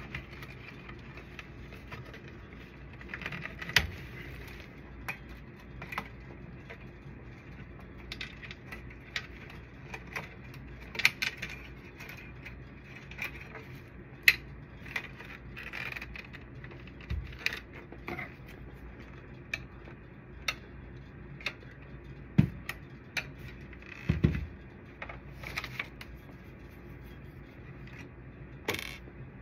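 Hard plastic parts of a copier's photoconductor drum unit clicking and clattering as it is handled and taken apart by hand: irregular sharp clicks and knocks, a few louder than the rest.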